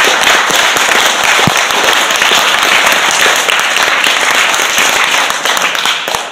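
Audience applauding, a dense spread of many hand claps that dies away near the end.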